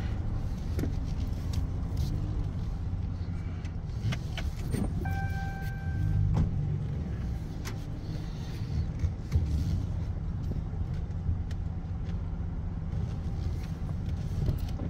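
Vehicle engine running at low speed, heard from inside the cab as it rolls slowly through a parking lot, with a few clicks and a short beep about five seconds in.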